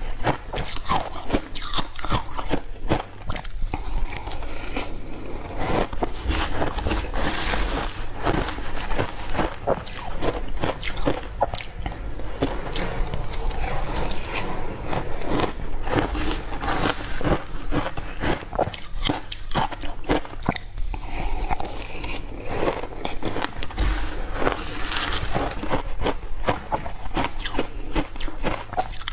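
Ice being bitten and crunched between the teeth: a dense, irregular run of sharp crunches without pause.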